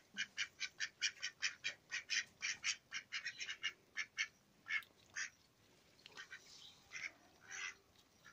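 Domestic ducks quacking in a quick run of short calls, about five a second, that thins out after about four seconds into a few scattered, fainter quacks.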